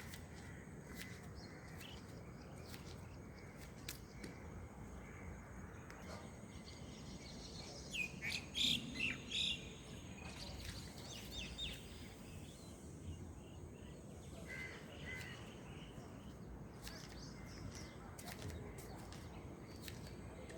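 Faint outdoor ambience with birds chirping over a steady background hiss: a quick run of short calls about eight seconds in and a couple more later.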